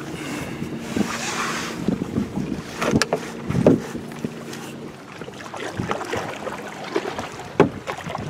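Canoe paddling: a paddle dipping and splashing in lake water with a few sharp knocks, and wind buffeting the microphone.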